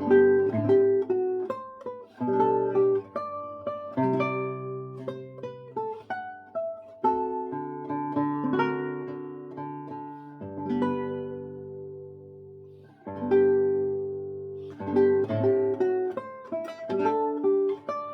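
Solo classical guitar, played fingerstyle: plucked melody and bass notes ringing together in flowing phrases, with brief lulls about seven and thirteen seconds in.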